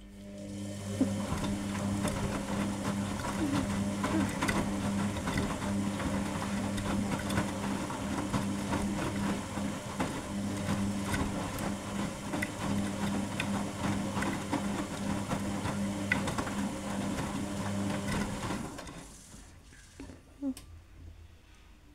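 Arcelik 7103 Y front-loading washing machine turning its drum during a wash: a steady motor hum with wet laundry tumbling and knocking inside. The drum stops about 19 seconds in.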